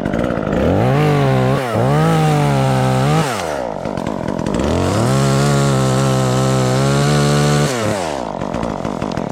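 Two-stroke chainsaw cutting off a limb: the engine revs up to full throttle three times, two short bursts and then a longer one of about three seconds, dropping back between and settling to idle near the end.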